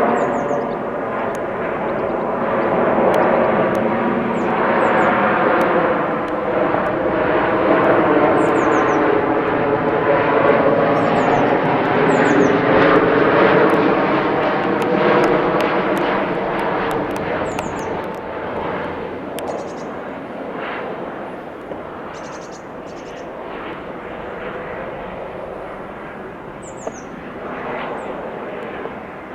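Jet airliner passing low overhead, its engine noise swelling to a peak about halfway through and then slowly fading as it moves away. Small birds chirp now and then.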